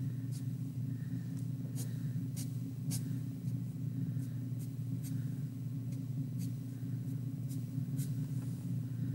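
Thick felt-tip permanent marker (Sharpie) drawing a series of short, quick strokes on paper, each a brief separate scratch, over a steady low hum.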